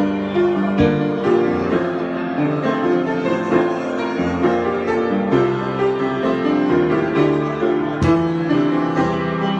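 Solo piano improvisation: chords and sustained notes moving at an unhurried pace, with one sharper stroke about eight seconds in.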